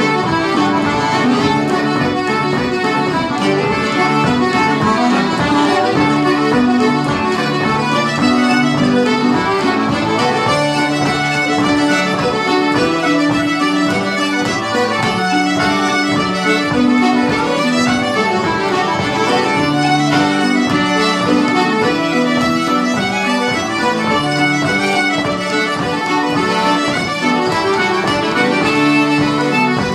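Irish traditional dance tune played live on button accordion and fiddle together, at a steady, lively beat.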